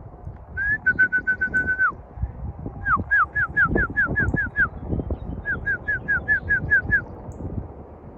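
A person whistling to call racing pigeons down to the loft: three runs of quick, repeated notes, each note flicking up and then dropping, about four a second, the first run opening on a held note.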